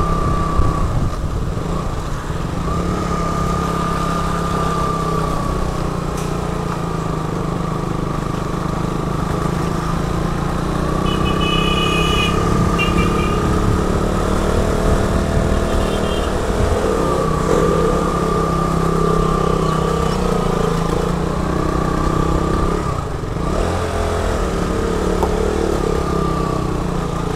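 Motorcycle engine running steadily at low road speed under the rider, with a wavering whine over it. A couple of brief high beeps sound a little before the middle.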